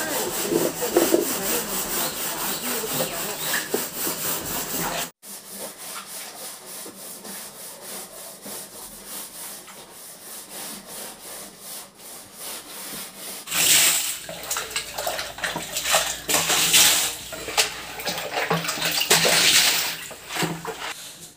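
Green scouring pad scrubbing the ribbed inner wall of a plastic water tank in quick repeated strokes, cutting out briefly about five seconds in; the scrubbing grows louder and harsher in bursts for the last several seconds.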